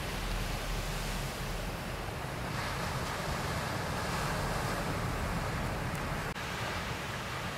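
Ocean surf breaking, a steady wash of noise that grows a little louder about two and a half seconds in, with wind rumbling on the microphone.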